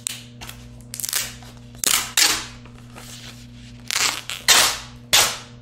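Stiff plastic laminating pouch crackling and rustling as it is pulled open by hand and the sheet inside is flexed. The loudest crackles come about two seconds in and again between four and five seconds. A steady low hum runs underneath.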